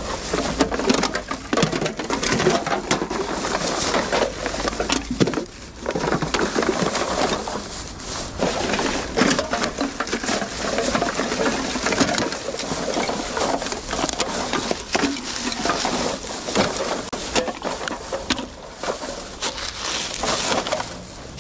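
Litter being picked up with a grabber and dropped into a plastic bin bag: empty aluminium cans and plastic bottles clinking and clattering while the bag rustles, a near-continuous run of crackles and clinks.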